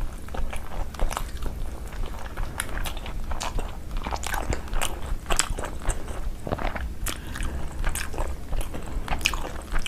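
A person chewing and crunching food close to the microphone, with many irregular sharp crunches and wet mouth clicks.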